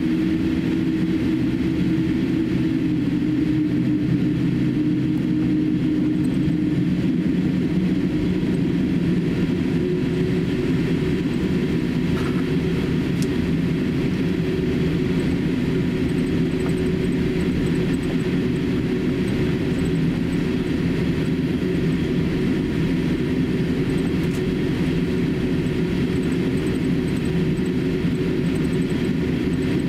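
Cabin noise inside a Boeing 787-8 taxiing on the ground: a steady low hum and rumble from the engines at taxi power and the airframe rolling along the taxiway.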